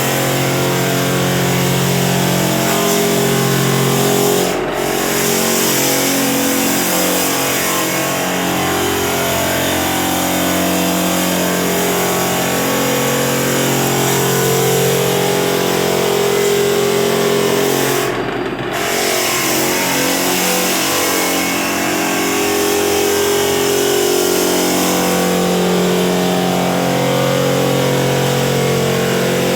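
Drum floor sander and its vacuum running steadily while sanding heavy varnish off a wood floor, the drum lubricated with WD-40. The motor's hum swells and eases, and the sound briefly dips twice, about five seconds in and again around eighteen seconds.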